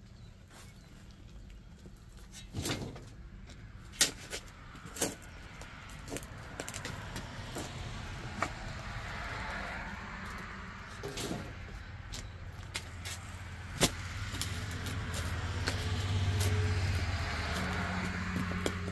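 Steel shovel digging into soil, with several sharp knocks and scrapes as the blade strikes and is driven in. A motor vehicle's engine runs underneath, growing louder over the second half and loudest near the end.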